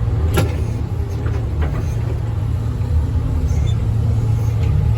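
John Deere 310SL backhoe's diesel engine running steadily, with a few light knocks, about half a second and about a second and a half in.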